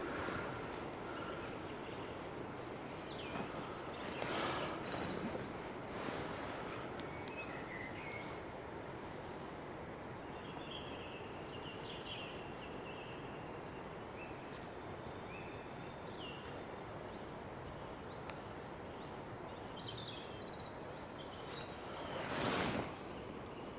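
Common blackbird singing short phrases over the steady rush of a river in flood. A brief loud rush of noise near the end.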